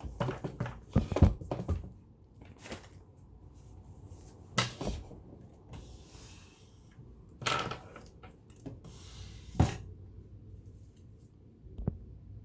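Handling noise: a quick cluster of knocks and clicks in the first two seconds, then single knocks and rattles every couple of seconds.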